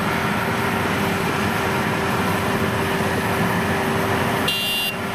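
WD102PRO rice combine harvester running steadily as it cuts and threshes rice, a dense mechanical din with a constant hum. An electronic beeping starts near the end.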